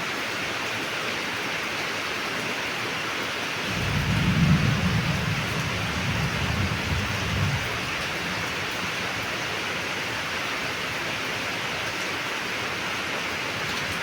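Steady heavy rainfall hissing, with a low rumble of thunder swelling about four seconds in and dying away a few seconds later.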